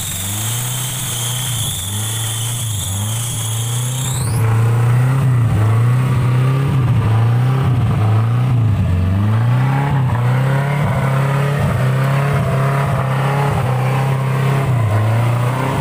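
Suzuki Vitara 4x4's engine revving up and down repeatedly as the mud-tyred vehicle works through a deep mud rut. A high steady whine stops suddenly about four seconds in, after which the engine is louder.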